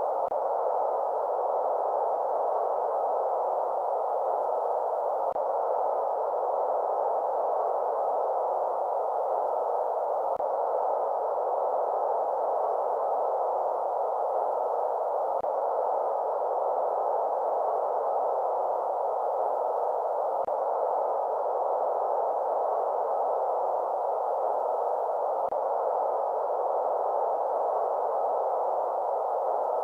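Steady electronically generated sleep noise, filtered so that only a mid-pitched hiss is left, with no deep rumble and no high sizzle. It holds an even level throughout, with a faint tick about every five seconds.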